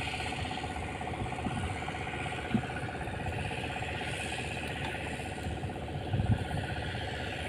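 Boat engine running steadily with a pulsing hum, with a couple of dull knocks, the louder one about six seconds in.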